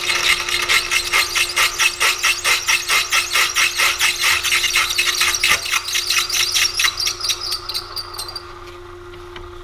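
High-speed steel drill bit in a milling machine cutting through a hard spot in a cast iron casting, in a rapid pulsing chatter about five times a second over the machine's steady running tone; the hard cast iron is dulling the bit's cutting edge. The chatter fades near the end, leaving the milling machine running on its own.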